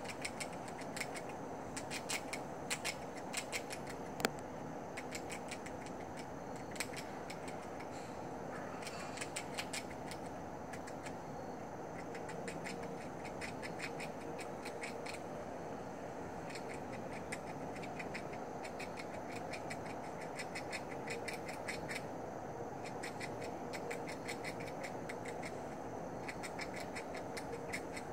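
Gray squirrel gnawing on food held in its paws: runs of rapid, sharp, crunchy clicks that come and go in bursts, over a steady background hiss.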